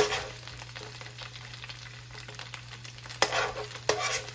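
Cornstarch-coated beef frying in hot oil in a skillet, a steady sizzle. Three sharp clinks of a utensil ring briefly over it: one right at the start, two more close together near the end.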